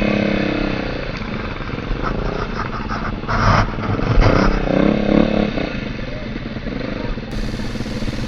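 Dirt bike engines running at low speed, their pitch sinking and swelling as the throttles are eased and blipped, with a short burst of noise about three seconds in.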